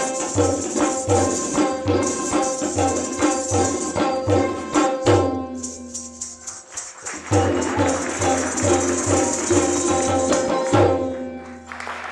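Fast Kathak footwork and tabla in a question-and-answer exchange: rapid foot stamps with the jingling of ankle bells (ghungroo), locked to tabla strokes with deep bass-drum thumps. A heavy stroke with a falling ring about five seconds in stops the rhythm briefly; it starts again about seven seconds in and ends on a final heavy stroke near the end.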